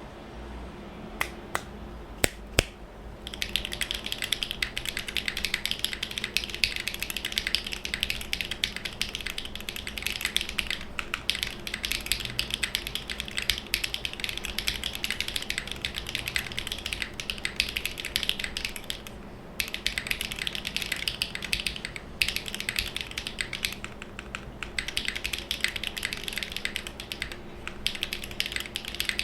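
Typing on a TKD Cycle7 gasket-mounted mechanical keyboard with a full aluminium plate and lubed Sarokeys BCP switches. A few separate key presses, then fast continuous typing broken by a few short pauses in the last third.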